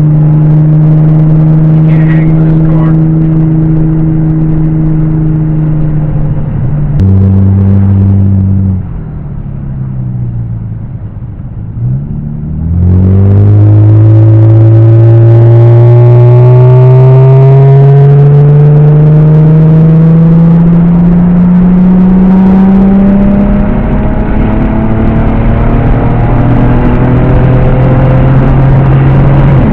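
Mazda 6 engine and exhaust heard from inside the car with the windows partly down. It cruises steadily, revs up briefly and then falls away quietly as the car coasts. About thirteen seconds in it pulls hard through a long rising acceleration, then drops in pitch at a gear change and settles to steady running.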